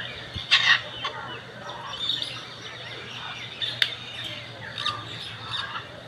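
Parrots in an aviary giving short, scattered calls, the loudest about half a second in, with a sharp click a little before the four-second mark.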